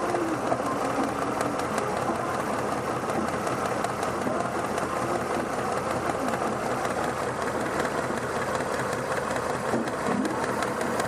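Engine idling steadily under the hood with a fast, even ticking. The engine has a vacuum leak around a fuel injector.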